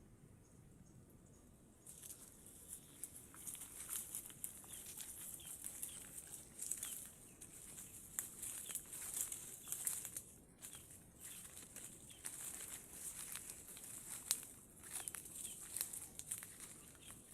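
Dry rustling and crackling, as of brush or leaves being moved through, with many small clicks and faint bird chirps; it starts about two seconds in, and one sharper crack comes near the end.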